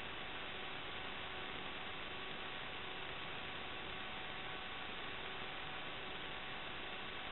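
Steady hiss with faint unchanging hum tones running through it: electrical noise on the FPV video link's audio channel as recorded by the DVR, with no sound of the quadcopter itself.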